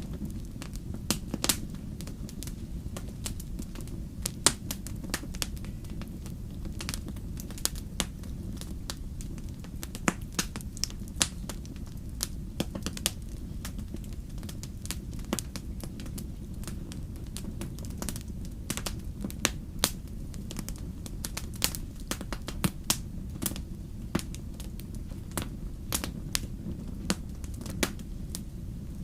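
Wood campfire crackling, with irregular sharp pops a few times a second over a steady low rumble.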